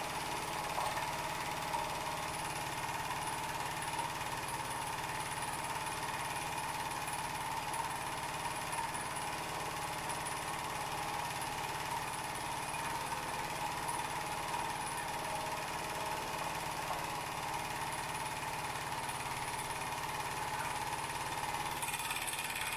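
Wilesco D20 toy steam engine running steadily at a fast, even rhythm: the puffing of exhaust steam and clatter of its piston, crank and flywheel.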